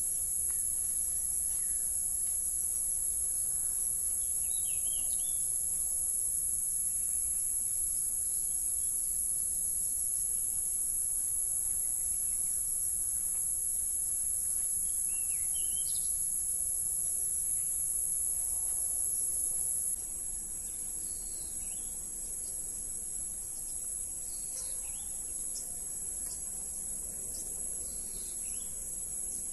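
A steady, high-pitched chorus of field insects, dropping a little in level about two-thirds of the way through. Two brief bird chirps come through it, one near the start and one about halfway.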